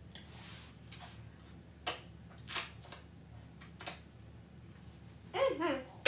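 A few sharp, separate clicks of a utensil against a dish, then a short hummed "mm" near the end.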